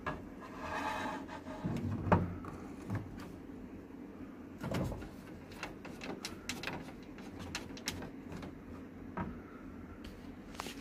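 Scattered plastic clicks and knocks from parts being handled inside the open front of a Sharp AR-6023N copier, with a sharp knock about two seconds in and a duller thump near five seconds.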